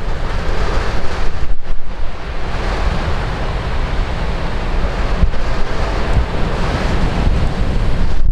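Heavy ocean surf breaking and surging in typhoon swell, with strong wind buffeting the microphone.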